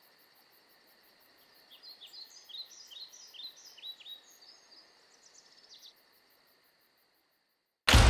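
Birdsong: a run of short, quick chirps for a few seconds, over a faint steady insect hum and fast high ticking. It fades out, and near the end loud music with a heavy low beat cuts in abruptly.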